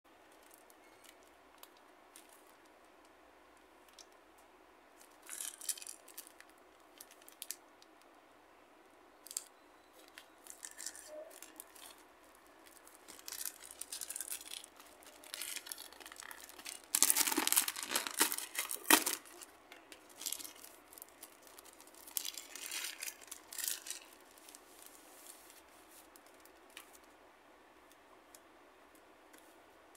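Hands tearing open and crinkling the wrapping of a lotería card set, in scattered rustles and tears, the loudest tearing about halfway through.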